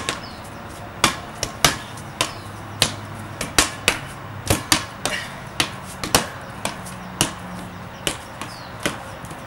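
Red rubber playground ball in a handball rally, slapped by hand and bouncing on a concrete patio: a quick, uneven run of sharp slaps and bounces, about two a second.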